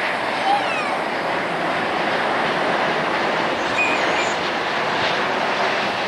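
Airbus A350-900 airliner on final approach, its Rolls-Royce Trent XWB turbofans giving a steady rush of jet noise. A few brief high chirps sound faintly over it.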